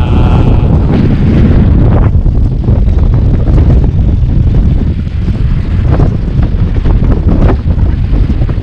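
Strong wind buffeting the microphone, a dense steady low rumble with a rushing hiss above it, with a couple of faint sharp clicks late on.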